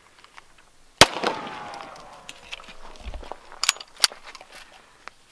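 A single shot from a full-auto-converted 1911 .45 ACP pistol about a second in, firing off the one chambered round to clear the gun. Its report rings on and fades over about a second. A couple of sharp metallic clicks from handling the pistol follow a few seconds later.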